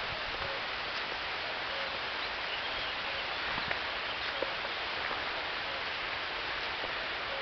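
A steady hiss, with a few faint, irregular crunches of footsteps on a dry, leaf-covered dirt path.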